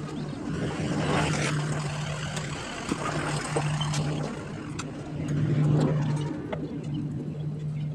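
An engine or motor running with a steady low hum that drops out and returns every couple of seconds, with light clicks and clanks over it.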